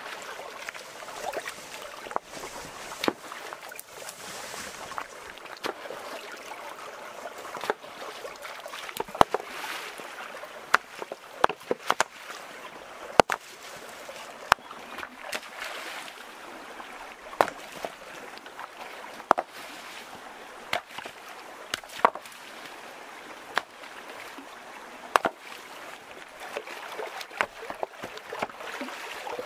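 Shallow stream water running over stones, with frequent sharp clacks of rocks knocking against each other and splashes as stones are lifted and moved by hand in the streambed.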